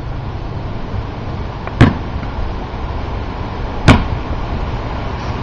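A basketball bounced twice on a concrete driveway, two slow dribbles about two seconds apart, over steady wind noise on the microphone.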